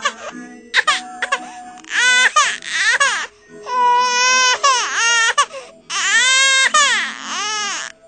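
Baby crying in a run of loud wails, each rising and falling in pitch, with short breaks between them and one long drawn-out cry near the end.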